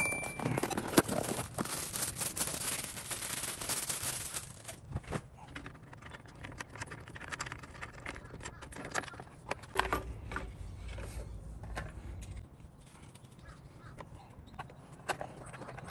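Hand-handling noise from servicing a mini tiller's air cleaner: a cardboard parts box rustles for the first four seconds or so, then the plastic air-cleaner cover and its fittings give scattered clicks and taps.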